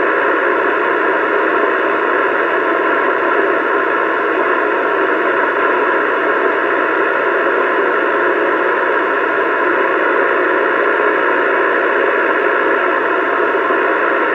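Steady, loud hiss of static from a CB radio's speaker, with no voice on the channel.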